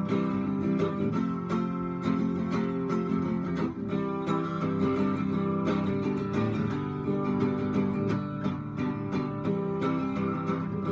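Instrumental break of a rock-and-roll song: guitar playing over a steady beat, with no singing.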